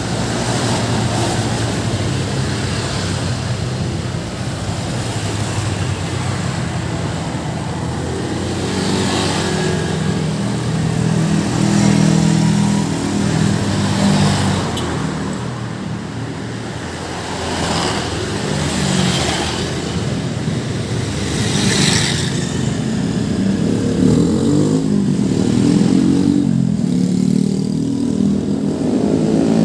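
Busy road traffic passing close by: cars and motorcycles driving past one after another, with an engine's pitch rising as it accelerates near the end.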